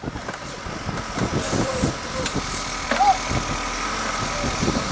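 Case 580 Super L backhoe's four-cylinder diesel engine idling steadily.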